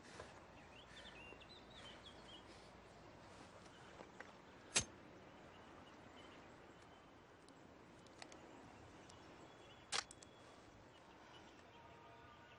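Quiet outdoor ambience with a few faint bird chirps, broken by two sharp clicks about five seconds apart.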